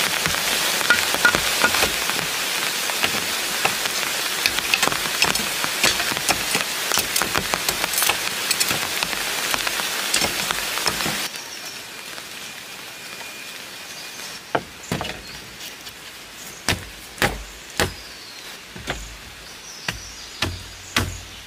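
Steady rain with a dense patter of drops, which cuts off about eleven seconds in. A quieter background follows, broken by a series of sharp single knocks, about one or two a second.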